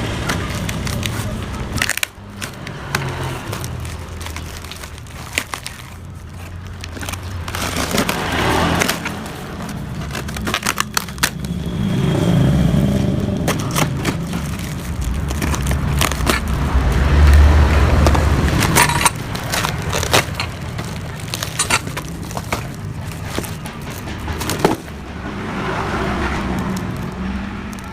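A parcel being torn and cut open by hand: crackling plastic wrap and tape with many sharp clicks and snaps. Low rumbles of passing traffic swell and fade in the background, the loudest about two-thirds of the way through.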